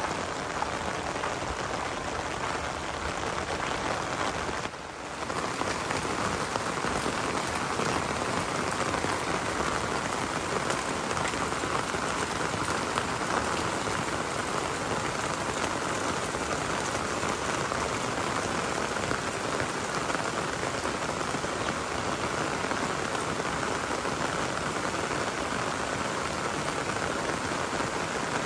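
Rain falling steadily, a dense even hiss of drops, with a brief dip in level about five seconds in.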